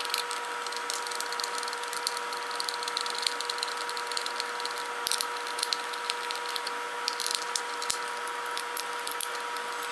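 Plastic 220 V plug cap and its screws clicking and rattling as they are handled and screwed together, many small irregular ticks over a steady hum and hiss.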